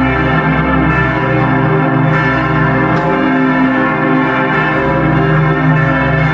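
Large Grassmayr-cast bronze church bells ringing together in a full peal, a new strike about every second over a dense, overlapping sounding with a deep hum underneath.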